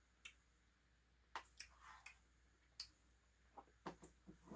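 Faint, scattered clicks and smacks of someone eating a soft-serve Blizzard, about eight in all at irregular spacing.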